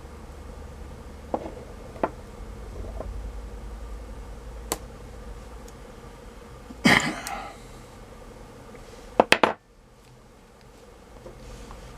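Hard plastic and metal parts of a laptop battery pack being handled and worked apart: scattered light clicks and taps, a short scraping rasp about seven seconds in, and three quick sharp clicks a little after nine seconds. A low steady hum runs underneath and drops away just after those clicks.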